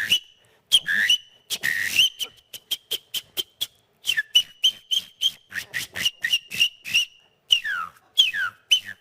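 A man whistling an imitation of a calandria (chalk-browed mockingbird) song: a quick, varied run of short high chirps and clear notes, many held on one pitch, with a few sweeping down.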